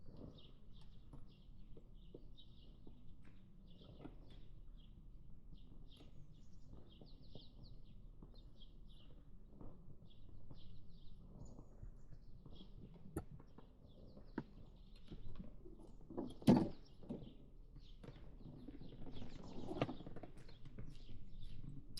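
Small birds chirping in short repeated phrases over a low steady outdoor rumble, with scattered clicks and a louder knock about two-thirds of the way through.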